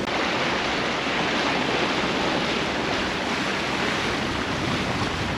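Steady rush of choppy sea water and wind around a sailing yacht under way.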